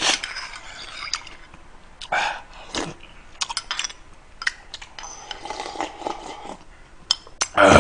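Eating sounds: a metal spoon clicking against a ceramic bowl, with slurping and swallowing of soup as the bowl is tipped to the mouth.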